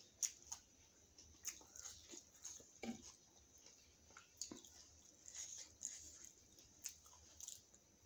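Close-miked mouth sounds of someone chewing veg paneer momo: irregular soft smacks and clicks, a few louder ones scattered through.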